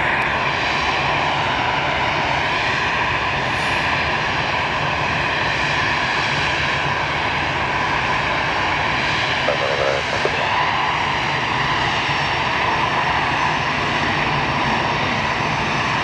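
Jet airliner's turbofan engines running steadily: a constant whine of several steady tones over a wide rumble.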